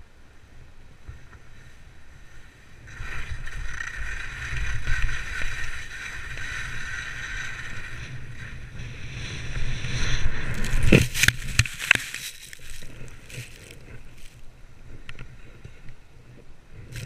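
Skis sliding and scraping over hard, wind-packed snow during a downhill run, a hiss that starts about three seconds in and grows, with wind rumbling on the camera microphone. A few sharp knocks come about eleven to twelve seconds in.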